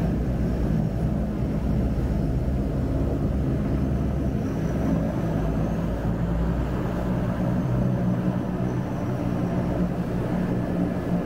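Seaplane's turboprop engine running steadily at low power, heard from inside the cabin as the floatplane taxis on the water: an even, unbroken low hum.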